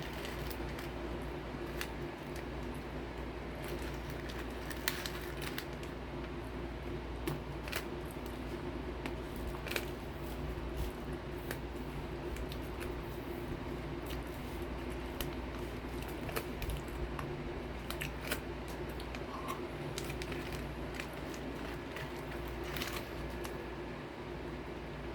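Close-up eating sounds: scattered crisp clicks and crunches from crackers and spoon handling, over a steady low hum.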